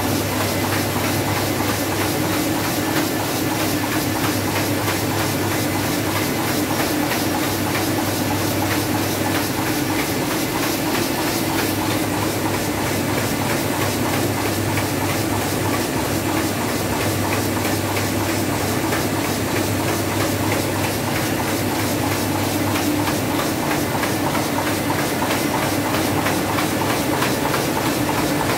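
Ryobi four-colour offset printing press running steadily at speed: a continuous dense mechanical clatter with a fast, even rhythm over a constant low hum.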